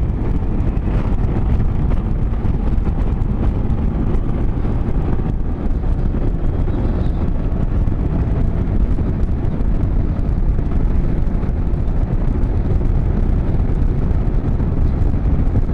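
Small 200 cc motorcycle engine running steadily at nearly wide-open throttle, climbing a mountain road at about 60 mph, under heavy wind rush on the microphone.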